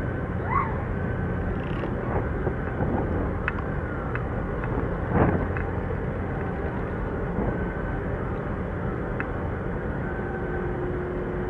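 Harbour ambience: the steady low drone of ship and tugboat diesel engines working across the water, with a few brief high chirps over it, the sharpest about five seconds in.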